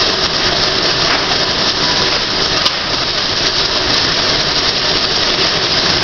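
Loud, steady din of sawmill machinery running, with boards carried along a chain transfer conveyor and roller deck.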